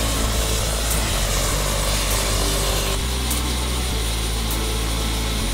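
Helicopter running with its main rotor turning: a steady, loud engine and rotor noise with a low drone underneath.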